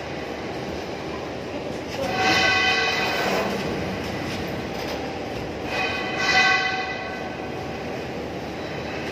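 A large galvanized sheet-metal duct section being tipped over and shifted on a concrete floor, its thin metal sides scraping and ringing twice: about two seconds in and again near six seconds. Steady background noise underneath.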